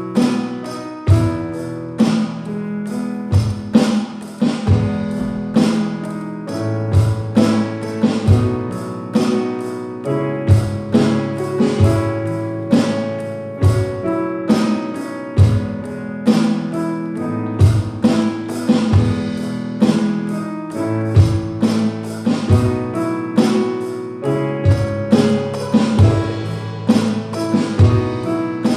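Drum kit played along to a recorded song. The song has guitar and keyboard, and the drum hits land in a steady beat throughout.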